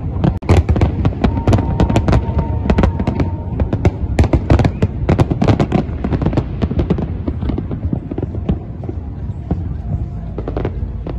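New Year fireworks going off in a rapid barrage of bangs and crackles. The bursts come thickest for about the first six seconds, then thin out.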